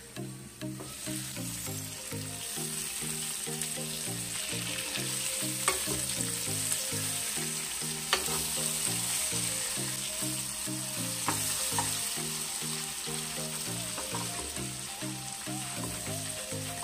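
Masala-coated eggplant halves frying in shallow oil in a kadhai, a steady sizzle, with a few sharp clinks of a steel spoon against the pan as they are turned. Soft background music plays underneath.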